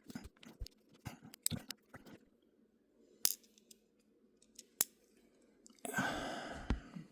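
Folding knife parts handled during reassembly: scattered light clicks and taps of the pivot screw and handle pieces, with two sharper clicks in the middle and a brief louder rustle near the end.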